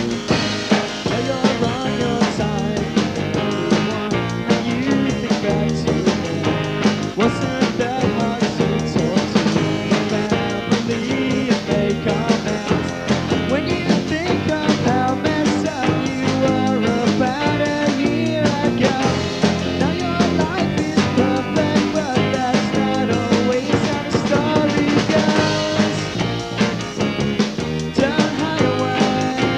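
Fuzz-pop rock band recording from a 1990s demo cassette: drums keeping a steady beat under guitars, the music running on without a break.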